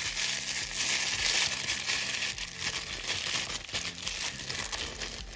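Plastic blind-box toy packaging crinkling continuously as it is handled and opened, stopping just before the end.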